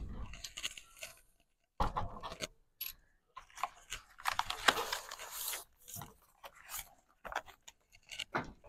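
Irregular handling noises: short bursts of crunching, rustling and scraping with a few light clicks, with brief pauses between them.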